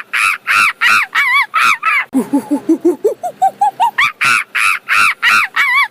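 Monkey screaming: a run of loud, high arching screams, then a series of short low hoots climbing steadily in pitch about two seconds in, building into another run of screams.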